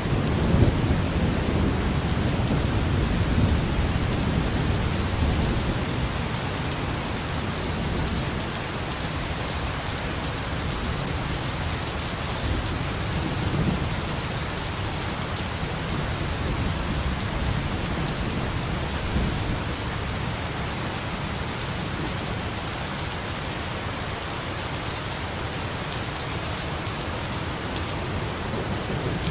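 Heavy rain pouring steadily, with low rumbling thunder under it that is strongest in the first few seconds.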